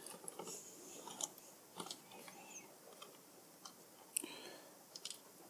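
Faint scattered clicks and light rustling of small plastic parts and a tool being handled while a hair straightener is reassembled.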